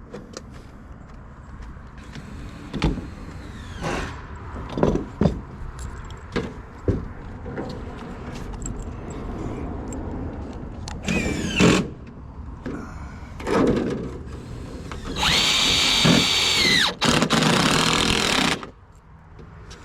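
Power drill driving screws: a short run about eleven seconds in, then a longer steady run of about three seconds near the end whose pitch drops before it stops. Scattered knocks and clicks from handling metal trim come before.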